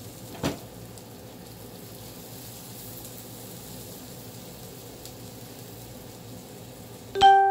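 Barbecue chicken thighs sizzling steadily on a Hamilton Beach electric indoor grill, with a light click about half a second in. Near the end a loud electronic beep starts suddenly.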